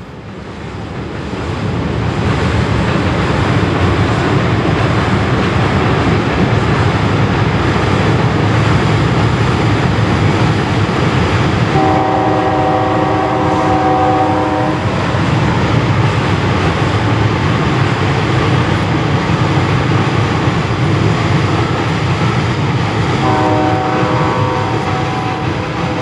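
A passenger train behind Pennsylvania Railroad EMD E8 diesel locomotives rumbling steadily across a steel truss bridge, with two long blasts of its multi-note air horn, about twelve seconds in and again near the end.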